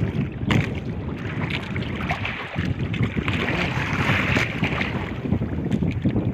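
Wind buffeting the microphone and sea water sloshing against a small wooden outrigger fishing boat, with a few faint knocks.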